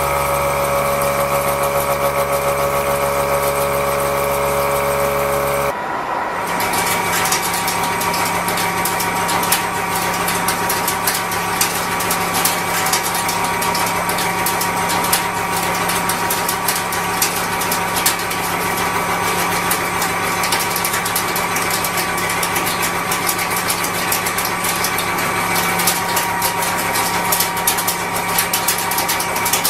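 Face-milling cutter on a CNC mill cutting a steel block. At first a steady machine hum carries several whining tones. After an abrupt change about six seconds in, a dense, rapid clatter of the cutter's inserts biting the steel runs over a steady hum.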